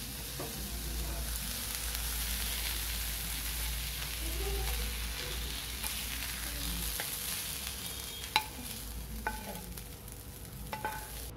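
Chopped onion and drumstick leaves sizzling in hot oil in a pan while being stirred, with a few sharp spoon clicks against the pan in the second half. The sizzle cuts off suddenly near the end.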